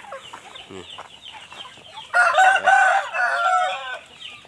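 Chickens clucking softly, then a rooster crows once, a single call of nearly two seconds starting about two seconds in; the crow is the loudest sound.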